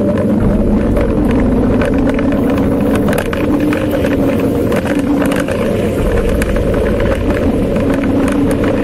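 Wind buffeting a bicycle-mounted camera's microphone while riding: a loud, steady low rumble. Scattered clicks and rattles come from the bike rolling over the rough gravel shoulder.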